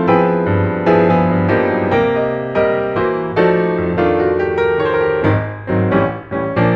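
Background piano music, a steady run of struck chords that each ring and fade.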